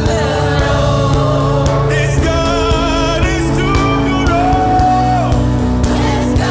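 Gospel worship music: a sung voice with wavering, vibrato-like held notes over steady, sustained instrumental accompaniment.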